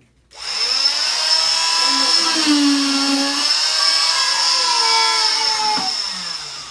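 Oscillating cast saw switched on and cutting into a fiberglass cast on a child's foot: a loud, high steady whine whose pitch dips and rises a few times as the blade bears on the cast. It starts about a third of a second in.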